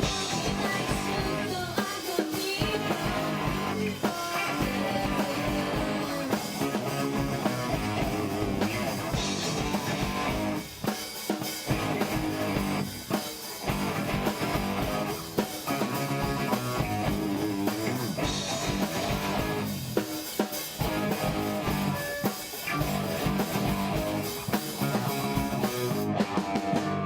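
A live rock band playing with electric guitar, bass guitar and drum kit at a steady groove. The music cuts off abruptly near the end.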